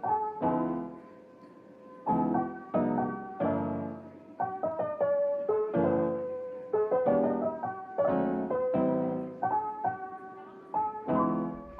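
Background piano music: a gentle melody of struck notes over chords.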